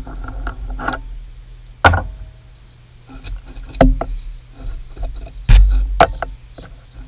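Several separate sharp metal clanks and knocks as hand tools are picked up and handled at a metal lathe, the loudest with a dull thud about five and a half seconds in.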